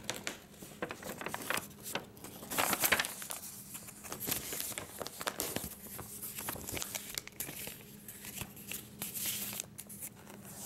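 Sheets of a large printed paper document rustling and crinkling in irregular bursts as they are handled and folded up.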